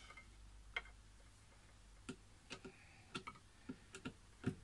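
Pliers and wire being worked: about ten light, sharp clicks and ticks at irregular intervals, the loudest near the end.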